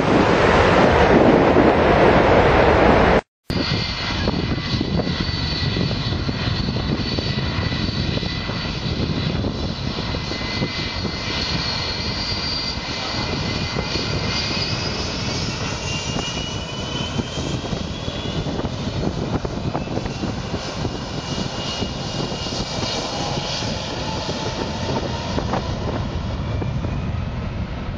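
Strong wind buffeting the microphone, cut off by a brief dropout about three seconds in. Then the jet engines of a US Airways airliner on the ground run with a steady rush and whine, several whistling tones slowly rising in pitch.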